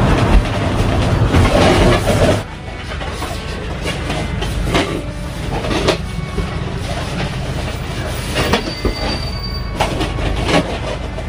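Inflated latex balloons squeaking and rubbing against each other as they are handled and twisted together into clusters, over a steady low hum. The rubbing is loudest for the first couple of seconds, then drops off suddenly.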